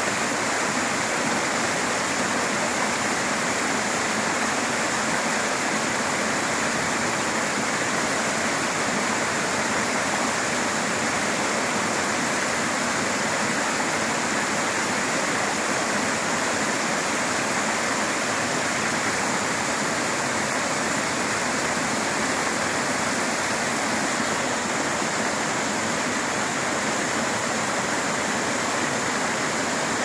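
Waterfall falling down a rock face into a shallow, stony pool: a steady, even rush of water with no breaks or changes.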